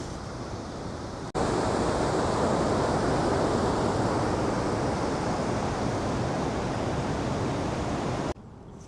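Steady rushing of flowing river water. It starts abruptly about a second in and cuts off abruptly near the end.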